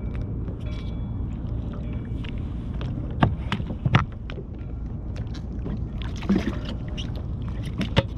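Water lapping against a fishing kayak's hull under a steady low rumble of wind on the microphone, broken by a few sharp knocks, two of them close together about three and four seconds in and more near six and eight seconds.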